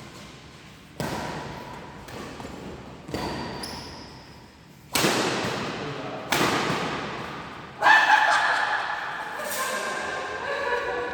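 A run of about six sharp knocks or thuds at uneven intervals, each echoing away in a large hall. The loudest comes near the end and is followed by people's voices calling out.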